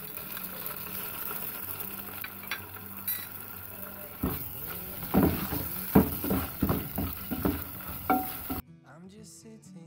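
Onions, cumin and chopped green chillies sizzling in hot oil in an enamelled pot. From about four seconds in, a wooden spoon stirs them, knocking and scraping against the pot in a quick run of strokes, about two a second. The sizzle cuts off suddenly near the end, leaving soft background music.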